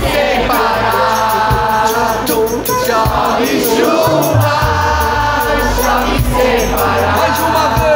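Live samba-rock band (electric bass, guitars, keyboard, horns, drums and hand percussion) playing a steady groove with a fast ticking hi-hat or shaker, while the audience sings the refrain together like a choir.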